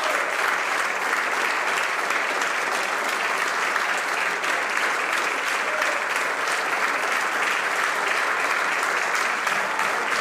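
Many people clapping together in steady, sustained applause from a large group of legislators.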